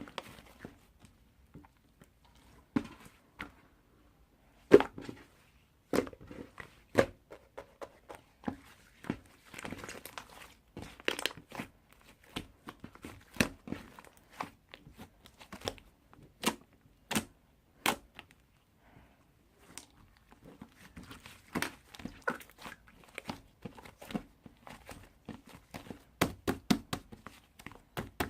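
Irregular crinkling, rustling and sharp tapping clicks, like paper or plastic being handled at close range.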